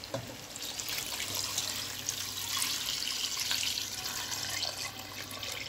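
Water being poured into a cooking pot over browning chicken pieces, a steady rush starting about half a second in and easing off near the end, to cover the chicken for the broth.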